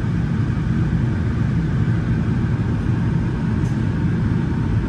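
Daikin chilled-water air handler running: a steady, loud rumbling rush of its fan and the air moving through the unit.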